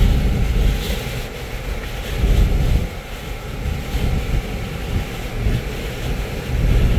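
Wind and road noise inside a moving vehicle: a low, uneven rumble that swells and eases.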